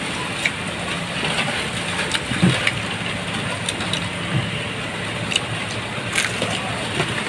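Crunching of crispy fried pork fat being chewed, with scattered short crackles over a steady hiss.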